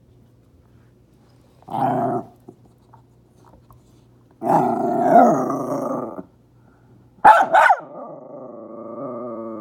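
Dog growling in bouts: a short growl, then a longer one, two sharp barks about seven seconds in, and a long drawn-out growl after them.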